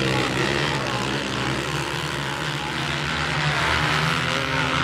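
A pack of motocross bikes racing together, several engines revving at once, their pitches overlapping and rising and falling as the riders work the throttles.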